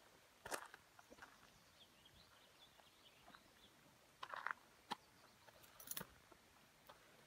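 Mostly quiet, with a few scattered footsteps scuffing on a rocky dirt trail, the clearest about halfway through and again near the end. Faint high chirps, like distant birds, sound in the background.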